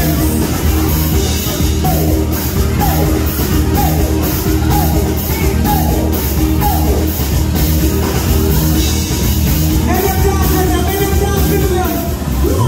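Music: a song with a steady beat and singing, with a held, wavering sung line about ten seconds in.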